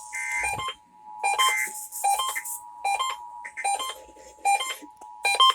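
Emergency Alert System two-tone attention signal sounding steadily. Short clusters of electronic alert beeps repeat over it about every 0.8 seconds.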